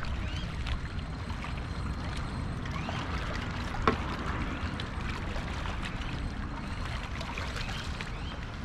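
Steady wash of water with a low rumble underneath, and one sharp click about four seconds in.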